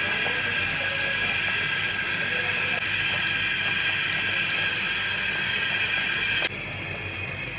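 Prawn curry simmering and sizzling in a pan: a steady hiss that drops away suddenly near the end.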